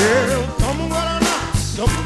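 A soul-funk band playing live with a lead vocal over a bass line and a steady drum beat.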